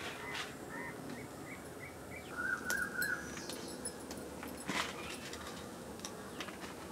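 A bird calling: a run of short, evenly spaced chirps, then a louder quick trill about two and a half seconds in. A couple of sharp clicks also sound, one of them near the trill.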